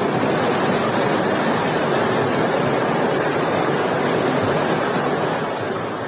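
Steady loud rushing rumble of debris and dust pouring down after a house is blown up, with no separate impacts, fading out near the end.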